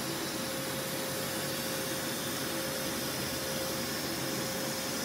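Steady machine hiss with a constant faint hum underneath. It holds an even level throughout, with no clicks or pulses.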